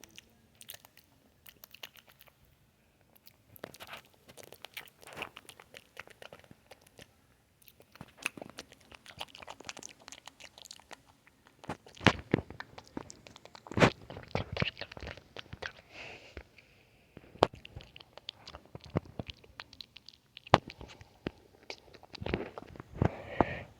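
Close-miked gum chewing: wet mouth clicks and smacks in quick irregular runs, getting denser and louder about halfway through.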